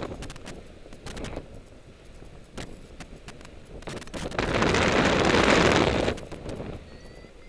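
Wind rushing and buffeting on the microphone of a paraglider in flight, with scattered short pops. A strong gust swells about four seconds in and dies away two seconds later.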